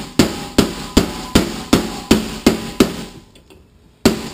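Hammer blows on a bushing driver, driving a new bushing into a Toyota A340 automatic transmission's oil pump body until it sits approximately flush. About eight sharp metallic strikes at a steady rhythm of roughly two and a half a second, each with a short ring, then a pause and one more blow near the end.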